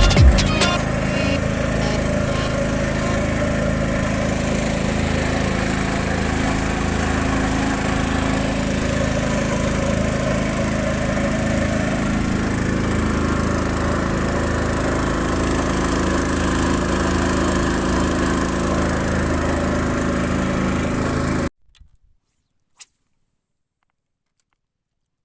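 A small engine running steadily at a constant speed, stopping abruptly about three-quarters of the way through. Near silence follows, broken by one faint click.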